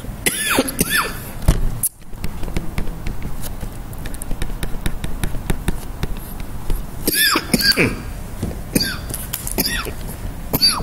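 Stylus tapping and scratching on a tablet screen while writing, over a steady low room hum, with several short sounds that fall quickly in pitch.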